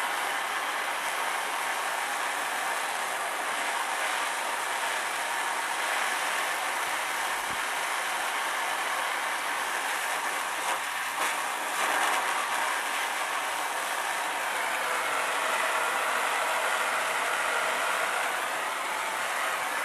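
Soldering torch flame hissing steadily as it heats a copper-to-brass valve joint before solder is fed in. A few brief ticks sound about halfway through.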